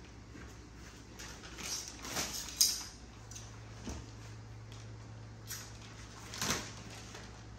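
Handling sounds from unpacking a compressed, wrapped mattress: scattered rustles and scrapes, with a sharp knock about two and a half seconds in and another rustling burst near the end.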